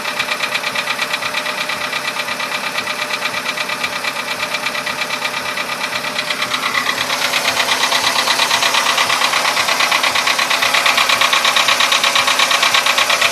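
Volkswagen Polo Sedan engine running with a fast, even knock, which grows louder from about seven seconds in. The knock has become much louder by 67,000 km, after starting out barely noticeable.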